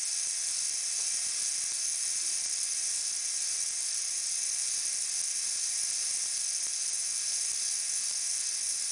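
Small Siku Control 32 DC gear motor running steadily at 3 volts, its output shaft turning slowly at about 72 rpm; a steady, high whir with a thin constant tone.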